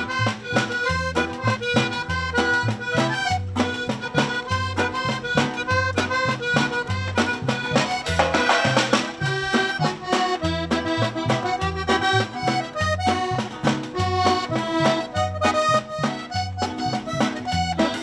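A small Latin American band of accordion, guitar, upright bass and drum playing a tune, the accordion carrying the melody over a steady, regular bass beat.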